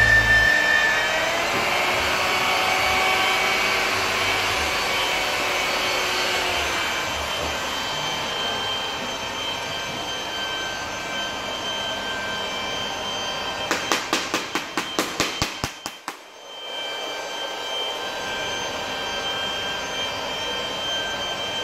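Handheld electric rotary polishers running steadily with a motor whine as their pads work over windshield glass. About two-thirds through comes a quick run of clicks, then the sound dips briefly and comes back.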